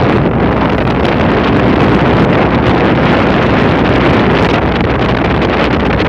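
Loud, steady wind buffeting the microphone, with the rush of a rough sea around a boat.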